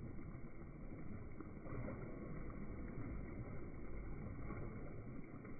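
Muffled splashing and sloshing of water from a swimmer's overarm strokes.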